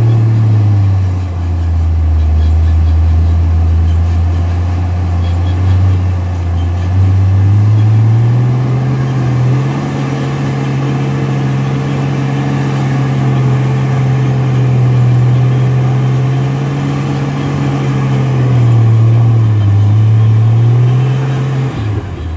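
Rock-crawling Jeep's engine working under load as it climbs a rock ledge: the revs sag low for several seconds, rise and hold higher, dip again briefly, then drop away sharply near the end.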